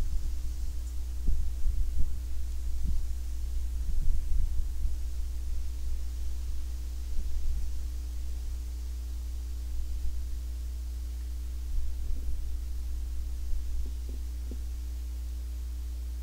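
Wind buffeting an outdoor microphone: irregular low thumps over a steady low hum, easing off in the last few seconds.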